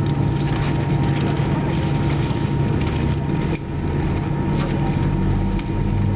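Cabin noise of an Airbus A320-212 taxiing, heard from inside the cabin: the steady hum of its CFM56 engines, with a few constant whining tones over it.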